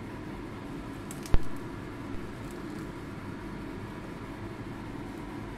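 Watercress being pushed down into a pot on the stove, with one sharp knock a little over a second in and a faint tick shortly after, over a steady background hum.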